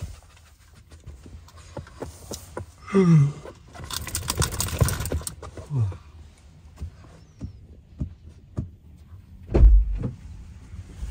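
Rustling and handling noises inside a parked car, with a short low falling vocal sound about three seconds in and a heavy thump near the end.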